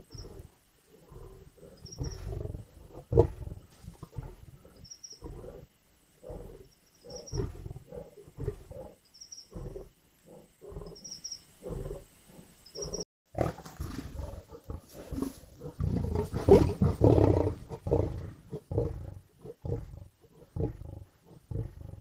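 Lions growling and snarling over a carcass, a run of short, rough growls one after another. About halfway through the growling becomes louder and more continuous for several seconds before breaking back into short growls.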